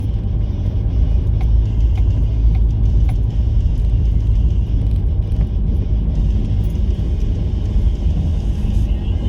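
Jeep Liberty 2.8 CRD four-cylinder turbodiesel running, a steady low rumble, with a few light knocks in the first few seconds.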